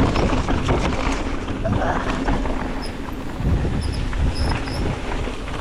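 Wind rushing over the microphone with the rattle and clatter of a mountain bike rolling down a rough dirt trail.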